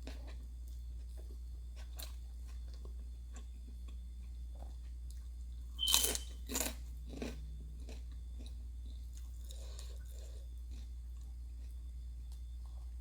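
A person chewing crisp fried food close to the microphone, with faint wet chewing and three loud crunches in quick succession about six seconds in. A steady low hum runs underneath.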